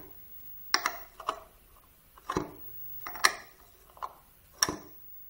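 Measuring flap of a BMW E36 flap-type air flow meter being pushed open by hand and springing back, giving a short plastic-and-metal clack about once a second, six times.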